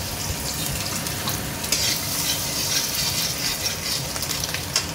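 Chopped garlic and ginger sizzling in hot vegetable oil in a large kadai: a steady frying hiss with a few light clicks.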